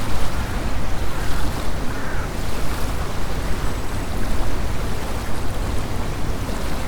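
Wind gusting over a lake and small waves lapping on the shore, with a steady wash of water and a low rumble of wind buffeting the microphone.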